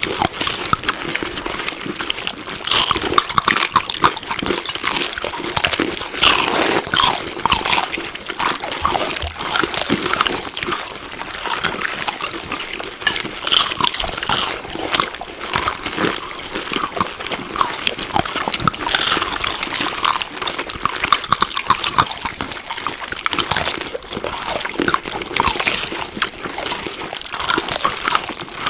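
Close-up wet chewing: a dense, irregular run of small smacks and squelches of food being chewed in a mouth.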